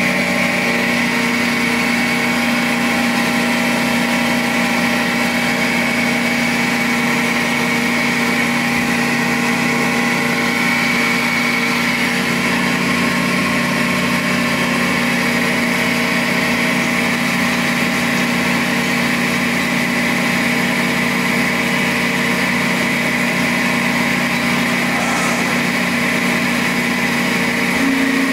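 Hydraulic pump and motor of a 130-ton Accurpress CNC hydraulic press brake running at idle: a steady hum with no ram strokes. Near the end the low tone of the hum steps up slightly.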